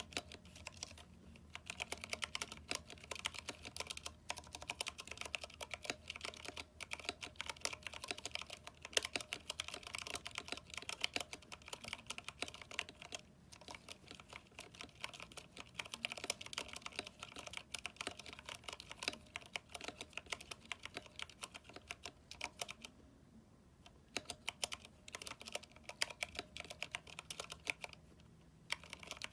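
Continuous typing on a mechanical keyboard with Cherry MX Brown switches and PBT keycaps: a quick, uneven patter of keystrokes with short pauses about a second in, around two-thirds through and near the end.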